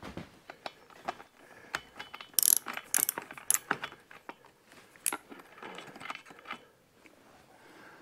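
Irregular metallic clicks and clinks of a spark plug wrench working the old plug out of a string trimmer's engine head, with a few sharper clinks in the middle.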